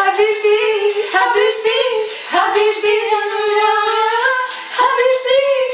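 A woman singing unaccompanied, a melody of long held notes that waver and slide in pitch, broken by short breaths.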